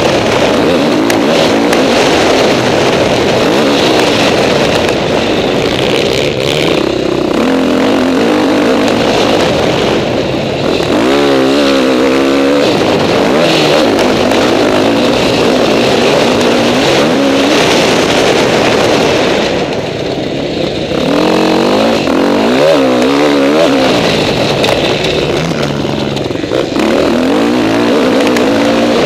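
KTM 450 SX-F motocross bike's single-cylinder four-stroke engine heard from on board, revving up and down as the rider works the throttle and shifts through the gears on a dirt track. The engine briefly backs off about ten seconds in and again about twenty seconds in before pulling hard again.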